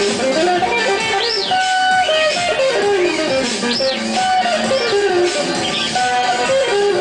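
Electric guitar music played through a delay effect: stepwise descending melody lines over a layered steady backing, with high swooping tones that rise and fall every second or two.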